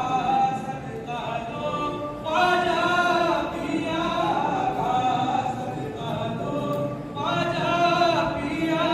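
Unaccompanied devotional singing of an Islamic salaam, voices drawing out long held notes, with a new phrase starting about two seconds in and again about seven seconds in.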